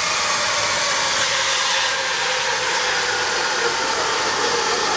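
A steady, loud rushing hiss that holds at one level without a break.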